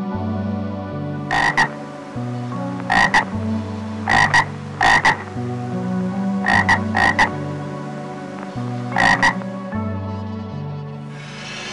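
A frog croaking in short double calls, seven pairs spaced one to two seconds apart, over soft background music.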